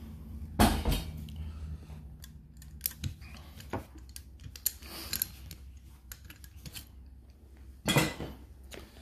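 Metal clinks and clacks of an AK-47 rifle and its parts being handled and set down, with a louder knock about half a second in and another near the end.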